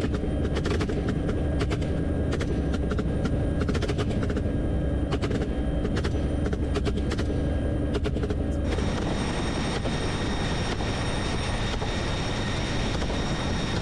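Rapid gunfire from rifles and machine guns, in irregular bursts and single shots, fired from the open door of a helicopter over the steady drone of its engine and rotor. About nine seconds in, the shooting stops and only the helicopter's engine noise remains, with a steady high whine.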